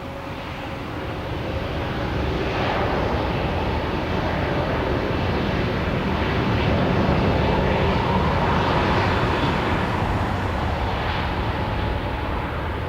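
An airliner passing close by, its engine noise swelling to a peak about seven to eight seconds in, then easing a little toward the end. A thin whine sits over the rumble.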